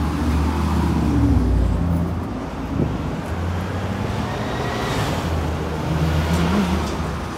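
Street traffic: a steady low engine rumble, with a vehicle going by about five seconds in.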